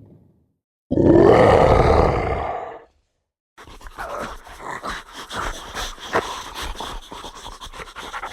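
A single loud, growling animal roar lasting about two seconds. After a short silence, rapid, ragged panting begins.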